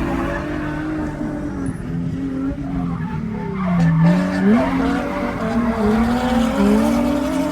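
Drift car engine at high revs with tyres skidding. The engine note dips about four seconds in, then climbs back up in steps as the throttle comes back on.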